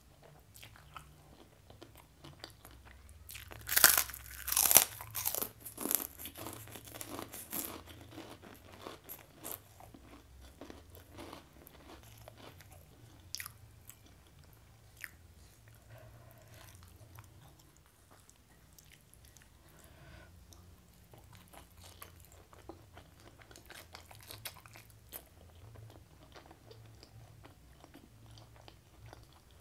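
Close-up eating sounds: loud crunching bites of crisp food starting about three and a half seconds in and lasting several seconds, then softer chewing with scattered small clicks.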